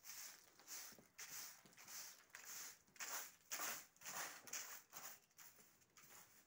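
A short straw hand broom sweeping dirt across a concrete floor: brisk, scratchy swishes, about two strokes a second.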